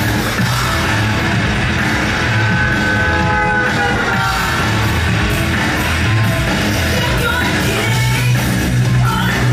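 Loud music with singing over a steady low beat.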